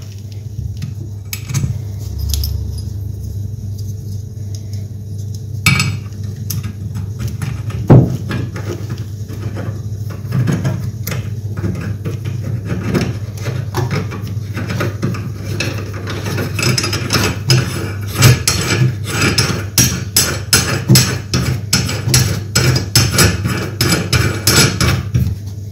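Brass tap nuts and washers being handled and screwed on by hand onto bath tap tails: scattered light metallic clicks, then a quick run of clicks and rattles through the second half, over a steady low hum.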